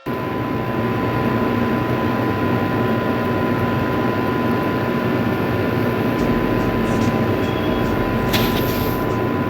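Steady, loud background noise with a thin constant high tone running through it, from a poor-quality recording. A few faint ticks come after about six seconds, and there is a brief burst of hiss near the end.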